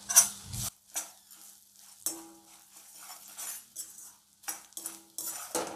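A steel spoon scraping and clinking against the sides of a stainless steel kadai while stirring a tempering in oil, in a string of irregular strokes, a few of them leaving a brief metallic ring.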